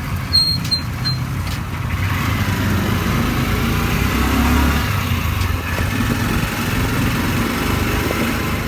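Motor vehicle engine running steadily with a low rumble, with a few short high beeps within the first second.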